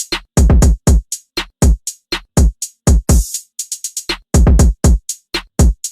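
Electronic music with a drum-machine beat: deep kicks that drop in pitch, quick high ticks between them, and a cymbal crash about three seconds in.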